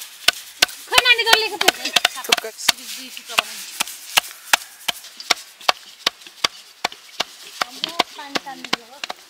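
Knife chopping steadily on a wooden board, about three sharp strokes a second. Brief voices come in about a second in and again near the end.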